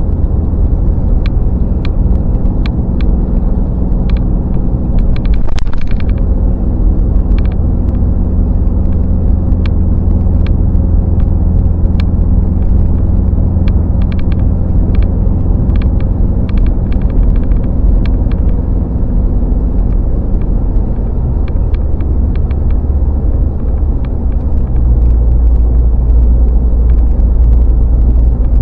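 Steady low road and engine drone heard from inside a moving vehicle at highway speed, with scattered light ticks. The low rumble grows heavier about 25 seconds in.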